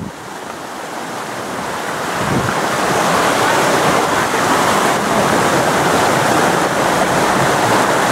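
Rushing water of a small rocky stream's rapids, a steady hiss that grows louder over the first three seconds or so and then holds steady.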